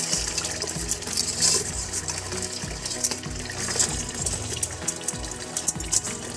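Water splashing and dripping in a steel bowl as live freshwater shrimp and crabs are stirred and picked out by hand, in many short irregular splashes.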